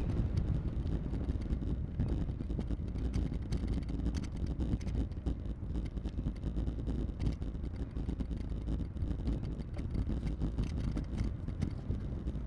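Steady wind noise and rolling rumble on the microphone of a handlebar-mounted action camera during a bicycle ride.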